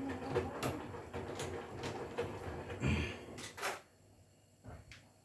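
Hotpoint Core inverter-motor washing machine turning its drum slowly, with the laundry thumping and clunking inside and clicks coming roughly every half second. The drum stops about four seconds in, leaving it much quieter.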